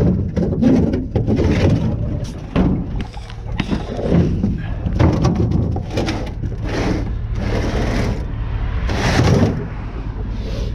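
Heavy scrap metal scraping and clanking against a trailer as it is shoved and dragged up onto it, in a series of short irregular bursts over a steady low hum.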